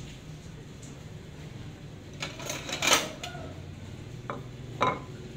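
Ceramic dishes clattering for about a second as a plate is handled, followed by two sharp knocks near the end.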